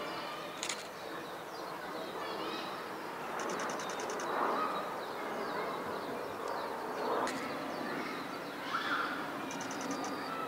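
Outdoor zoo ambience: a background murmur of visitors' chatter with birds chirping and calling, including a rapid high-pitched trill twice.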